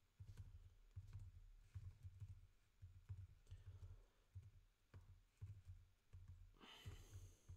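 Faint computer keyboard typing: scattered single key clicks, with a brief rushing noise near the end.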